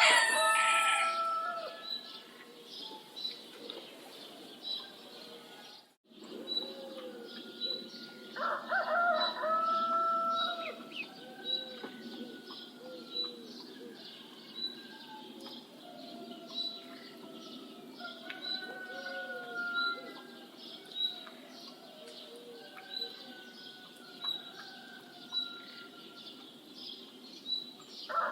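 A rooster crowing, at the very start and again about nine seconds in, over hens clucking with many short calls, and a high chirp repeating evenly throughout.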